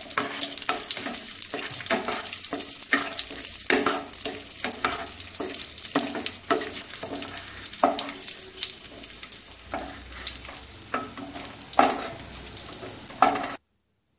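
Bay leaves and raisins frying in hot ghee, sizzling steadily, while a wooden spatula stirs and scrapes the pan in frequent clicks. The sound cuts off abruptly near the end.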